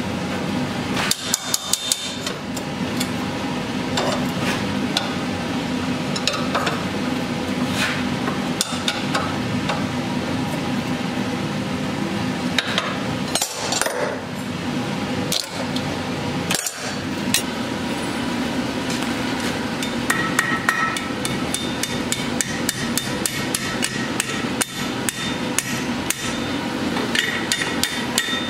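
Blacksmith's hand hammer striking hot steel on an anvil, in runs of quick blows with short pauses between, over a steady hum.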